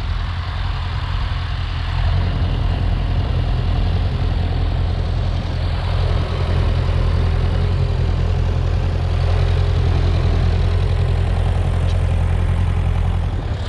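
Tractor engine running steadily, with a strong low drone, getting somewhat louder about two seconds in.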